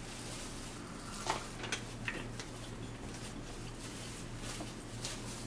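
Small handling sounds at a dinner table, a few scattered clicks and light rustles, over a steady low hum.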